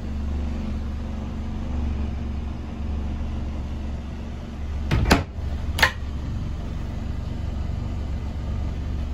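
Galley cupboard doors under a boat's sink being opened, with two sharp clicks of the doors or their catches about five and six seconds in, over a steady low hum.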